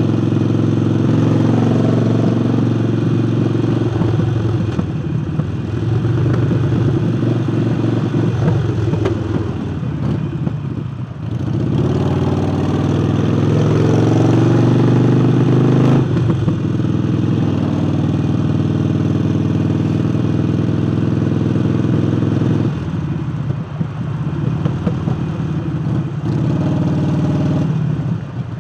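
Harley-Davidson Forty-Eight's air-cooled V-twin engine, breathing through a new aftermarket air intake, running under way on the road. About ten seconds in it eases off, then its pitch climbs for a few seconds as the bike accelerates, and it drops back again a little past twenty seconds.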